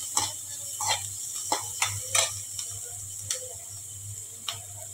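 Perforated steel ladle scraping and tapping against a metal kadhai in about seven irregular strokes while chopped onion, capsicum and green chilli are stirred, over a faint steady sizzle of the vegetables half-frying in butter and oil.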